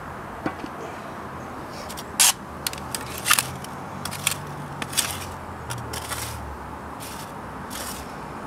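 Metal tongs clinking and scraping as they shift ashed-over charcoal briquettes on a perforated metal pan: a string of sharp clicks and scrapes, irregularly spaced.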